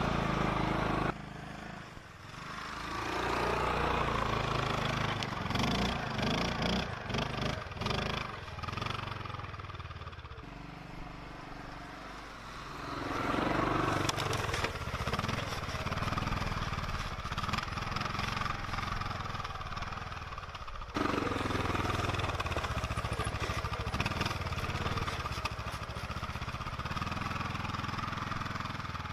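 Linhai 500cc four-stroke ATV engine running as the quad is ridden along a track, its pitch rising and falling with the throttle. The sound changes abruptly near the start and again about two-thirds of the way through.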